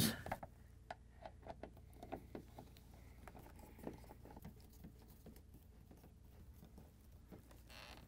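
Faint scattered clicks and light scraping of a hand-held Phillips screwdriver tightening the door-liner screws that clamp a new refrigerator door gasket in place.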